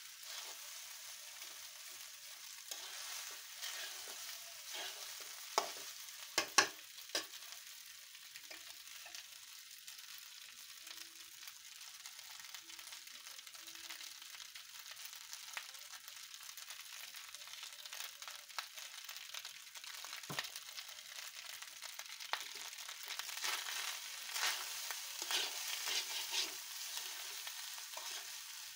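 Panta rice frying in oil in a nonstick pan, sizzling steadily while a metal spatula scrapes and turns it. A few sharp knocks of the spatula against the pan come about six to seven seconds in, and the scraping gets busier near the end.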